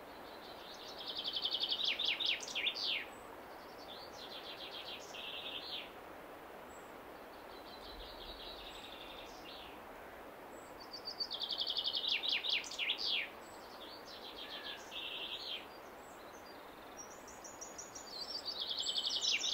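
A small songbird sings the same short trilled phrase again and again, each about two seconds long and ending in a few quick falling notes, over a steady background hiss.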